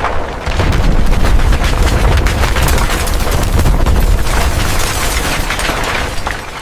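Explosion sound effect: a heavy low rumble thick with crackles, swelling about half a second in and dying away near the end.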